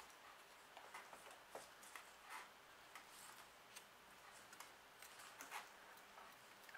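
Near silence with faint, scattered ticks and scratches: an implement picking through an orchid's bark potting mix and roots.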